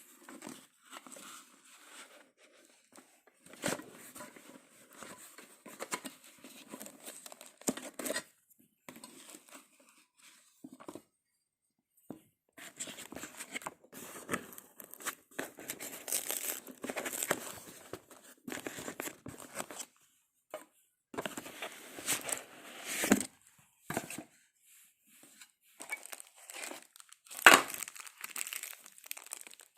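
Packaging being unwrapped by hand: irregular stretches of crinkling and tearing with short pauses between them, and sharp clicks or snaps, the loudest near the end.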